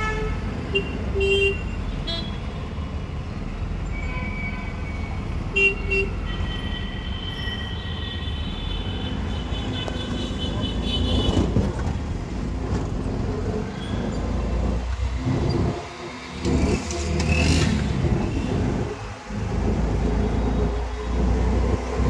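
Road traffic with a steady low rumble and vehicle horns honking several times in the first half. In the second half the rumble surges and drops unevenly.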